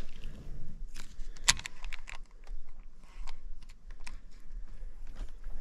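Irregular clicks and ticks from a baitcasting fishing reel being handled, the loudest about one and a half seconds in.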